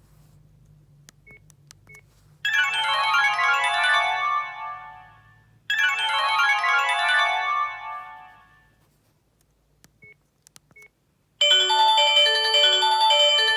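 Sony Ericsson S312 mobile phone playing its original built-in ringtones: one melodic ringtone phrase plays twice, each time fading out over about three seconds. Near the end a different, louder ringtone with a quickly repeating run of notes starts. A few faint short beeps fall before and between them.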